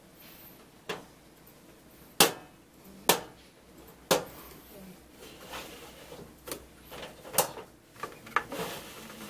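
Irregular sharp knocks and clicks, with light rustling between them, as a power cord and its two-pin plug are handled and tap against a plastic transformer housing and the tabletop.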